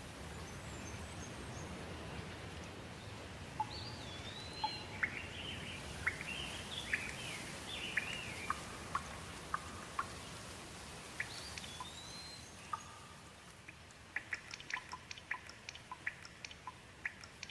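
Steady rain hiss with a songbird singing phrases of rising and falling whistles. Near the end the song gives way to a quick run of short, sharp chirps, and the rain grows fainter.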